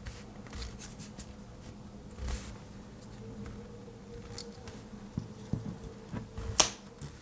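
Handling of a Victorinox Huntsman Swiss Army knife as its large blade is opened: scattered light clicks and one sharp click near the end, over a steady low hum.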